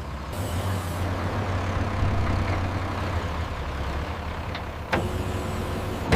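Excavator engine running steadily while the bucket is lowered, with a short hiss about half a second in.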